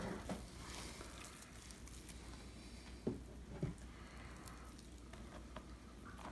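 Hands squishing and mixing wet bread dough in a bowl while flour is worked in, soft and faint, with two short thumps a little after three seconds in.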